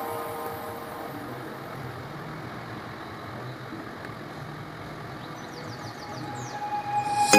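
Background music fading out at the start, leaving a few seconds of steady noisy hiss with a faint low hum. Near the end a rising swell leads into the next piece of music.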